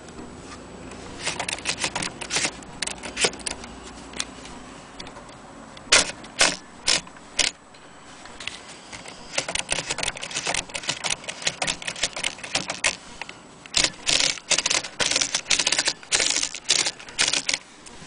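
Corona Standard manual typewriter being typed on: sharp clacks of the typebars striking the platen, in several quick runs of keystrokes with short pauses between them.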